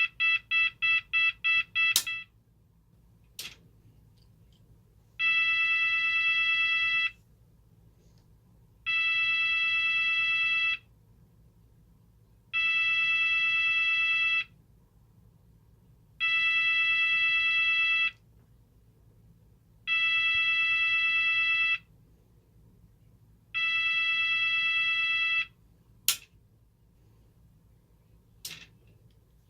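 Cooper MIN-T fire alarm sounder running through its tone patterns. A fast pulsing beep ends about two seconds in. After two sharp clicks come six steady blasts of a single fixed-pitch tone, each about two seconds long with short gaps between them. Two more sharp clicks come near the end.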